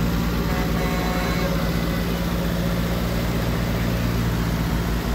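Antique Case farm tractor engine running steadily at low throttle as it rolls past close by, a low, even beat.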